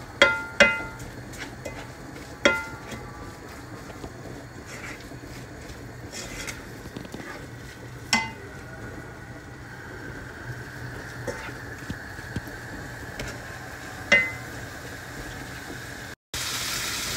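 Minced beef being stirred in a nonstick frying pan: the spatula knocks against the pan in about five sharp, ringing clinks, three of them close together at the start, over a faint hiss of the meat cooking. About a second before the end it cuts to a louder, steady sizzle of the meat frying.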